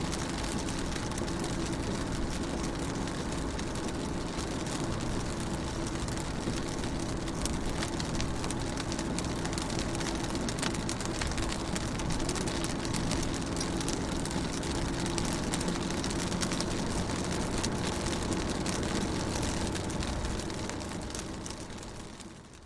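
Rain falling on a car's window and body, heard from inside the car as a steady hiss of many small drop hits over a low, even hum. The sound fades out near the end.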